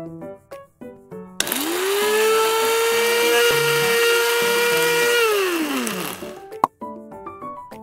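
Small electric motor whirring over light plucked background music: it spins up with a rising whine about a second and a half in, runs at a steady high pitch for about four seconds, then winds down and stops.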